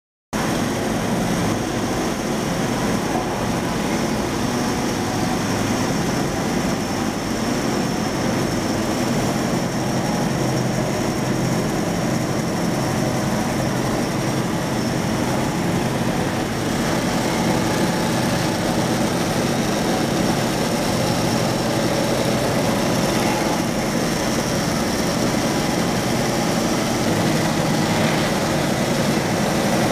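Horizontal band resaw running steadily, its motor and feed rollers going as a timber slab is fed through and sawn.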